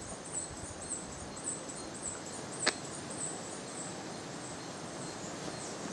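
Rainforest ambience: a steady hiss of the forest with a high, thin chirping call repeated about twice a second that fades out about halfway through, and one sharp click about two and a half seconds in.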